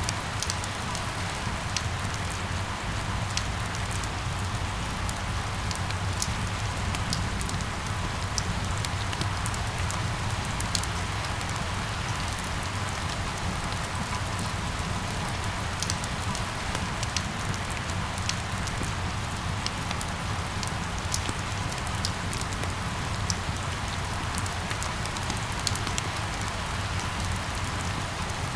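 Steady rain falling, with many scattered sharp drop taps over an even hiss and a low steady rumble underneath.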